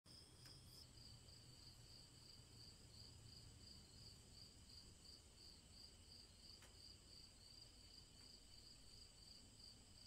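Faint crickets chirping in an even rhythm, about three chirps a second, over a low background rumble.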